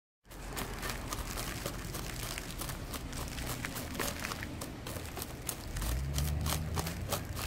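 A metal root hook raking through a bougainvillea's root ball, making a steady run of irregular scratches and crackles as soil is combed loose from the roots.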